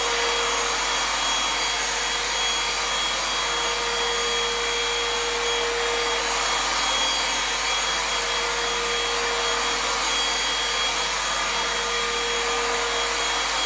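Gtech Pro Bag cordless vacuum cleaner's motor running steadily, an even rushing hiss with a steady whine.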